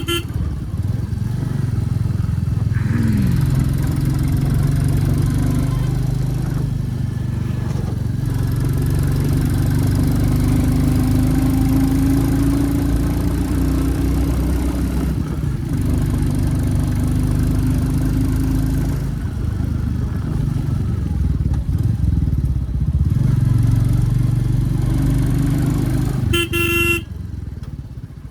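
A 2023 Royal Enfield Classic 350's single-cylinder engine running under way, its note shifting up and down with the throttle. A vehicle horn sounds briefly near the end.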